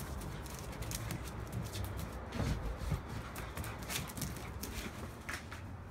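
Saluki puppy's claws clicking on a tiled floor as it moves about, in quick irregular ticks, with a couple of soft thumps midway over a low rumble.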